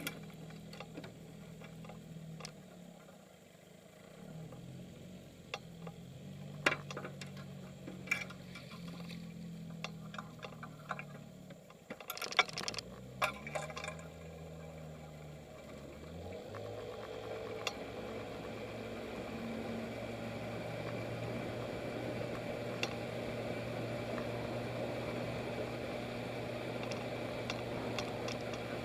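1971 Evinrude 6 hp two-stroke outboard running slowly, its pitch wandering, with scattered clicks and knocks. About halfway through it picks up and settles into a steadier, louder run as the boat gets under way.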